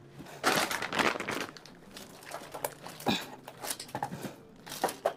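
Plastic grocery packaging crinkling and rustling in irregular bursts as packaged items are handled and moved about, with a longer spell in the first second and a half and shorter ones later.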